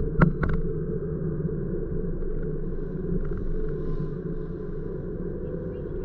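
A car driving on a city street, heard from inside the cabin: a steady low rumble of engine and road noise. Two sharp clicks about a third of a second apart come just after the start.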